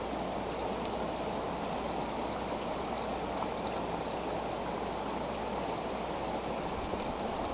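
Steady rushing noise like running water, with a few faint, brief high chirps.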